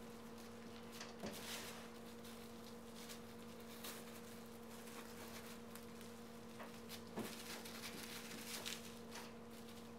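Faint rustling and soft taps of a cling-film-wrapped bamboo sushi mat being rolled and pressed by hand, over a steady low hum.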